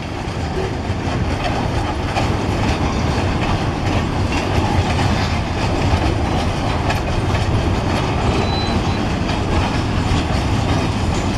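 Freight train cars rolling past close by: a continuous rumble of steel wheels on rail with a rapid, irregular clickety-clack as the wheels cross rail joints. The train is made up of empty bulkhead log flatcars and gondolas.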